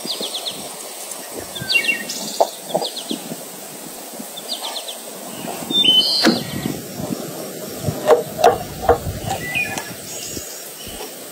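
A knife cutting and chopping through a raw whole chicken on a wooden board, with a sharp knock about six seconds in and three more around eight to nine seconds. Small birds chirp now and then in the background.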